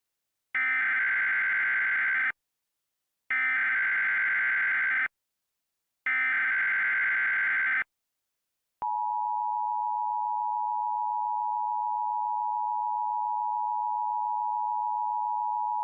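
Emergency Alert System SAME header: three identical bursts of warbling data tones, each under two seconds and about a second apart. About nine seconds in, the steady two-tone EAS attention signal starts and holds.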